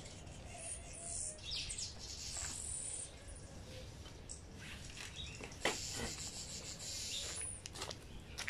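Small birds chirping and twittering, with a few short clicks or knocks.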